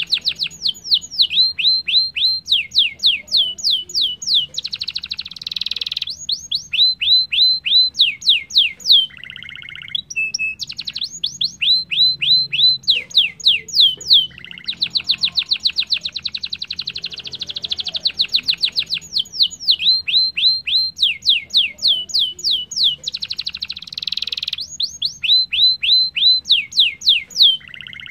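Domestic canary singing: long, rapid trills of fast down-sweeping notes alternating with buzzing rolls, in phrases of a few seconds with brief pauses between them.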